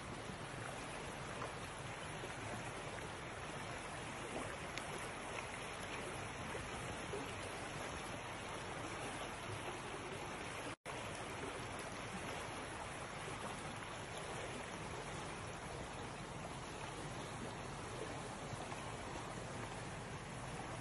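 Steady rush of flowing river water, an even noise that breaks off for an instant about eleven seconds in.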